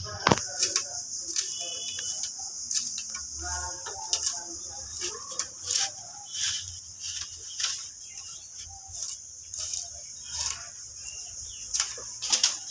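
A hand blade chopping and splitting thin bamboo strips against a wooden plank: sharp strikes at a steady pace of about one every 0.7 seconds, with rustling of the strips between them.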